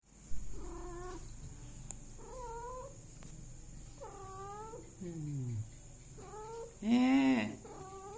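A domestic cat meowing over and over, about seven calls in a row, some drawn out with wavering pitch and one sliding down. The loudest is a long, arched call near the end.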